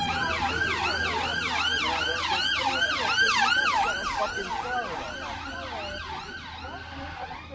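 Ambulance siren sounding a fast yelp, its pitch sweeping up and down about three times a second, loudest a few seconds in and then fading.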